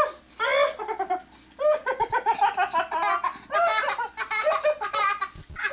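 Young child laughing hard while being tickled, in repeated bursts of high-pitched, breathless giggles.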